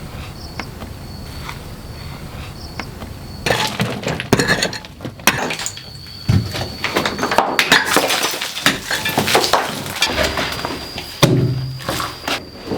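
A steady high insect trill throughout. From about three and a half seconds in, a dense run of irregular cracks, knocks and clatter joins it.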